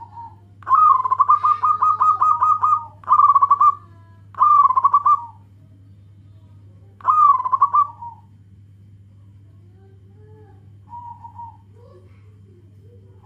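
Zebra dove (perkutut) cooing: four loud, rapidly pulsing coo phrases in the first eight seconds, the first and longest about two seconds, then a faint short coo near the end.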